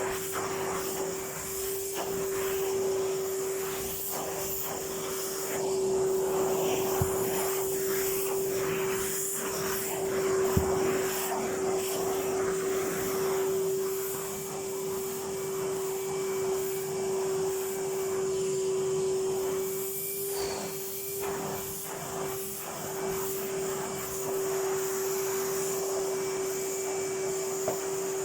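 Vacuum cleaner running with a steady hum, its brush attachment rubbing back and forth over a silk pile carpet, with a couple of sharp taps partway through.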